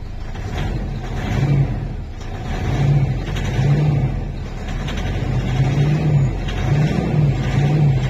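Mitsubishi Strada's diesel engine running and revved in several short blips, rising and dropping back each time. It runs now that the faulty immobilizer antenna ring behind the steering wheel has been unplugged, after the truck had cranked without starting.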